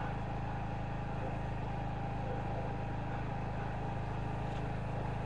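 Steady low mechanical hum that does not change in level or pitch.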